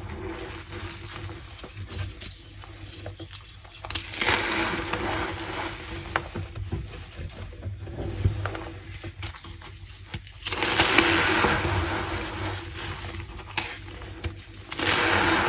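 Reformed gym chalk blocks being squeezed and crushed by hand, crumbling with a dry, squeaky crunch. It comes in spells, loudest about four seconds in, again from about ten seconds in, and just before the end.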